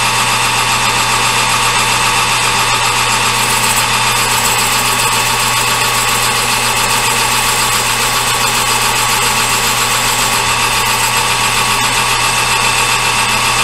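Metal lathe running steadily while taking a turning cut on a brass part. It gives a constant hum with several steady whining tones that do not change.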